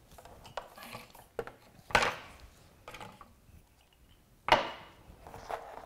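Hard objects being knocked and set down on a tabletop as craft supplies, including a hot glue gun, are put away: a few separate clacks with rustling between them, the loudest about two seconds in and another at about four and a half seconds.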